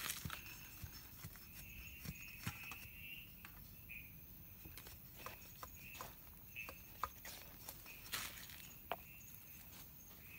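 Quiet jungle ambience at dusk, with a calling creature's short high call repeating every second or so. A small tinder fire catching in split kindling adds scattered soft clicks and crackles.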